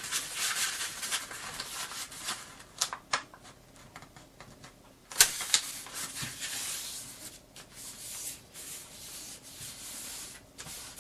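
A sheet of origami paper being folded in half into a triangle and its crease rubbed flat: rustling and rubbing, with a few sharp crackles about three and five seconds in.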